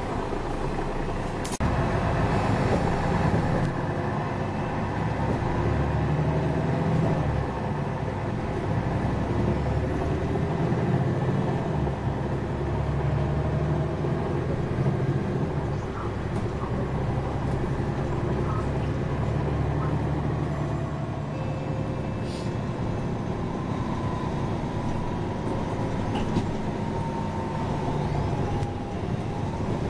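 Mercedes-Benz Citaro city bus under way, heard from inside the passenger cabin: a steady low engine hum with road noise, the engine note shifting as the bus drives on. A short click about a second and a half in.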